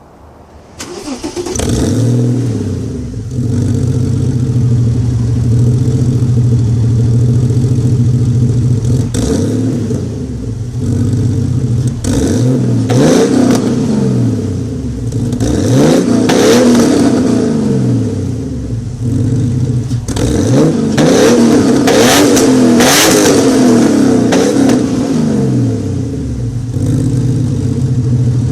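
Porsche 993 racing car's air-cooled flat-six starting about a second in, then idling steadily. It is blipped up and down repeatedly in the middle before settling back to idle.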